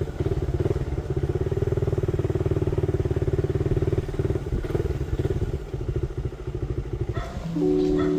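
Small motorcycle engine running with a rapid, even pulsing, easing off a little around the middle. Music comes in near the end.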